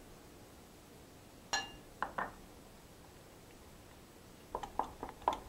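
A whisk clinking against a glass mixing bowl as a thick sesame dressing is whisked: one ringing clink about a second and a half in, two lighter taps just after, then a quick run of clinks near the end.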